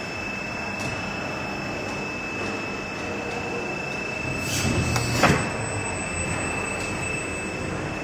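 Injection moulding machine running with a steady mechanical hum and a thin high whine. About four and a half seconds in comes a brief surge of hissing noise, ending in a sharp clunk just after five seconds.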